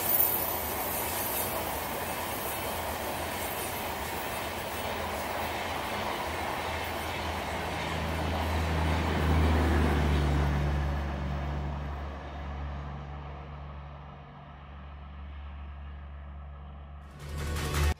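Rushing rumble of a train of LHB passenger coaches passing at speed on welded track, wheels running on the rails. A low steady hum joins about eight seconds in as the rear of the train goes by. The rushing then fades as the train draws away.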